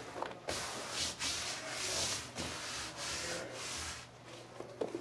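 Hands sliding and rubbing over a large ostrich leather hide as it is spread and smoothed flat, a series of dry rubbing strokes that fade out near the end.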